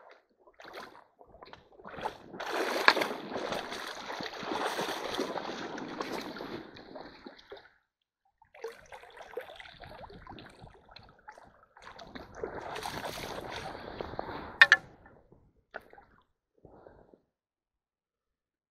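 Water splashing and sloshing as a hand net is worked through a shallow, stony stream, in two spells, with a sharp knock near the end of the second.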